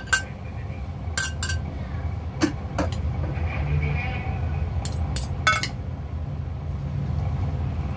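Metal fork and spoon clinking against a glass mixing bowl as crab meat salad is mixed: about eight sharp clinks, scattered and uneven, over a steady low hum.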